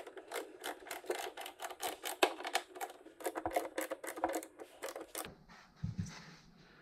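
Quick, irregular clicking and light rattling of small hardware being worked loose by hand from a motorcycle saddlebag lid and liner, about five or six clicks a second. It stops abruptly about five seconds in, giving way to fainter handling noise and one soft thump.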